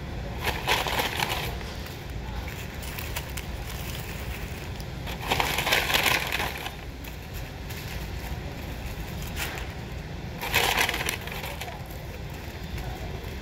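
Paper burger wrappers crinkling as the wrapped burgers are handled and set down, in three short bursts: about a second in, around six seconds in and near eleven seconds in. A steady low hum runs underneath.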